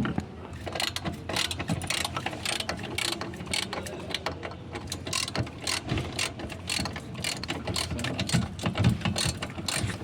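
Hand ratchet wrench clicking in quick, uneven runs of strokes as fasteners are turned on a vehicle.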